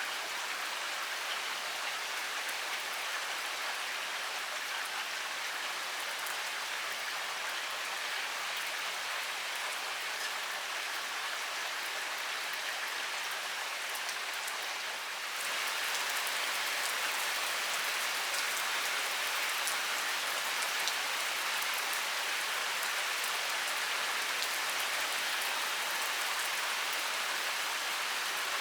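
Heavy rain pouring steadily: a dense, even hiss with scattered drop ticks. About halfway through it steps up slightly louder and stays there.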